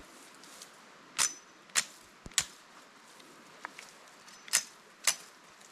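Five sharp chops of a blade cutting evergreen boughs: three about half a second apart, then a pause and two more.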